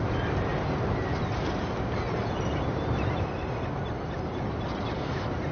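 Motor yacht under way: a steady low engine rumble and rushing water, with a few faint, short bird calls over it.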